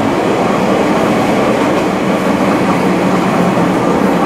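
Kanto Railway KiHa diesel railcar running along the track, heard from inside at the front of the car: a steady rumble of engine and wheels on rail with a low hum underneath.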